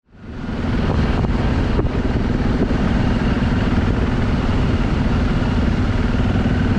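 BMW F650GS Dakar's single-cylinder engine running steadily while riding on a gravel road, with tyre and wind noise and a few faint ticks. It fades in over the first half second.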